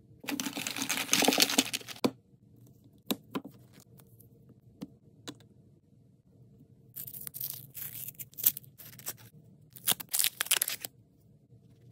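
Small paper and plastic wrappers crinkling and tearing as they are opened by hand. A loud rustle lasts about two seconds at the start, a few light clicks follow, then two more bursts of crinkling come in the second half.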